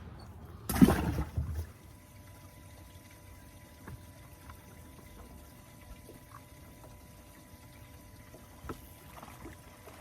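A splash of water about a second in, lasting about a second, then faint water movement with a few small ticks.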